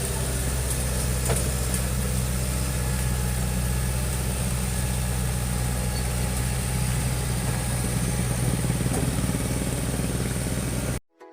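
Excavator engine running steadily at an even pitch, cutting off abruptly near the end.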